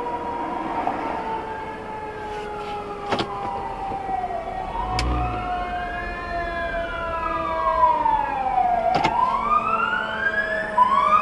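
Fire truck siren wailing in slow sweeps, its pitch falling, then rising and falling again over a few seconds each, over a steadier tone, with a few sharp clicks.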